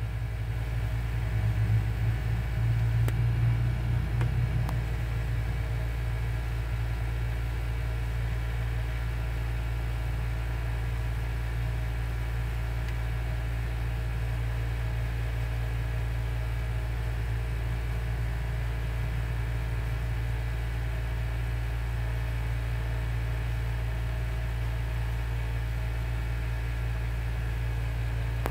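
Steady low mechanical hum, a little louder for a few seconds near the start.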